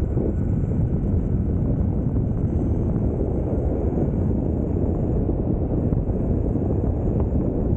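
Wind buffeting the microphone over the steady rumble of an electric mountain board's pneumatic tyres rolling on asphalt at speed.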